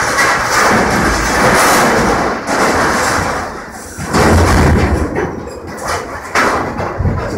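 Excavator's hydraulic demolition shear crushing and tearing metal tanks and warehouse debris: long loud stretches of crunching noise, with heavy thuds about four seconds in and again near the end.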